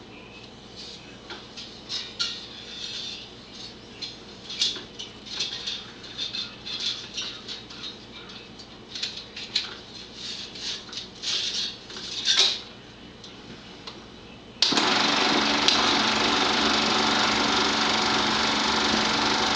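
Sound playback from a Bell & Howell 16mm projector (Model 2592 AX): a low hum with irregular crackles and pops, then about 15 seconds in an abrupt jump to a loud, steady hiss with hum.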